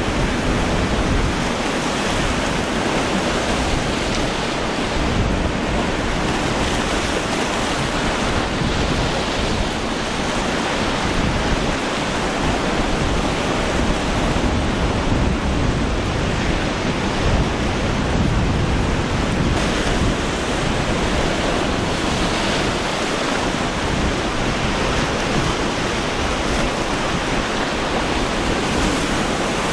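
Steady rush of surf and breaking waves in rough inlet water, with wind buffeting the microphone.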